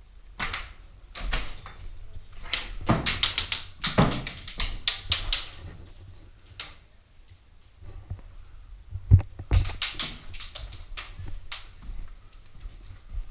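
Airsoft guns firing indoors: rapid bursts of sharp clicking shots about 3 seconds in and again about 10 seconds in, with single shots and knocks between. A couple of heavy thumps come just before the second burst.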